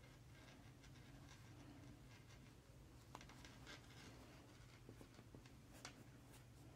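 Near silence with faint scattered rustles and small ticks of yarn and crocheted fabric being handled as loose ends are sewn in with a needle.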